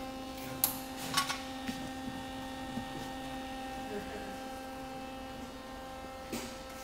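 MIG welder powered up after being plugged back in, its motor running with a steady even hum. A few light knocks and clicks of handling sound over it.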